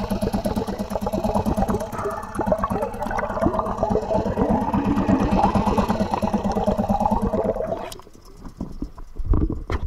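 Yamaha 3AMHS single-cylinder two-stroke outboard running steadily under way, heard muffled through the water with its propeller churning. About eight seconds in the engine sound drops away abruptly, leaving low water slaps and sloshing against the camera.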